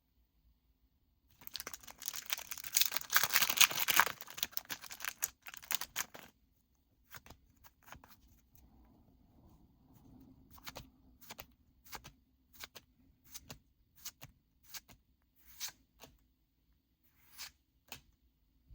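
A Pokémon Surging Sparks booster pack's foil wrapper being torn open and crinkled for about five seconds, then the cards flicked through one at a time, a short sharp swish roughly every half second.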